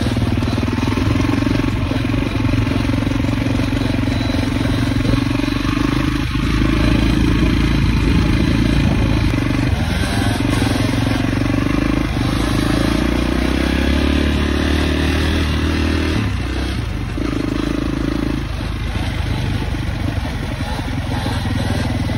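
Off-road vehicle engine running and revving, its note shifting in pitch a few times, with a dip in loudness about sixteen seconds in.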